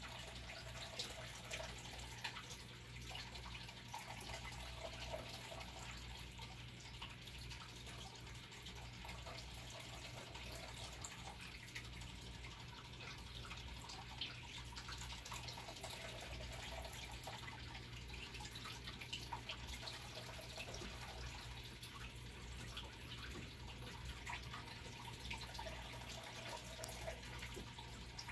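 Faint trickling water with scattered small drips over a steady low electrical hum.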